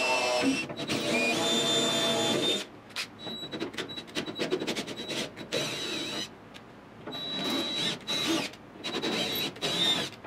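Electric drill drilling out a snapped sun-visor screw in a steel windshield frame. The motor whines steadily for the first two seconds or so, then runs in short stop-start bursts with a thin high squeal as the bit bites the metal.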